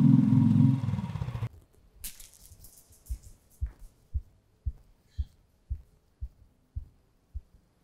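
Motorcycle engine running close by, cutting off sharply about one and a half seconds in. Then a steady run of soft, low thumps, about two a second.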